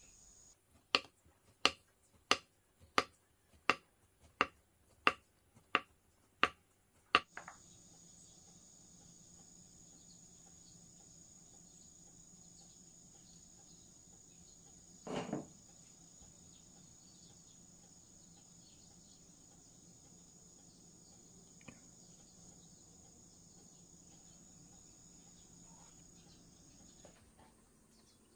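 Kitchen knife slicing through a block of tofu and striking a wooden cutting board, ten even chops about two-thirds of a second apart, stopping after about seven seconds. A single dull knock comes about halfway through, over a faint steady high-pitched tone.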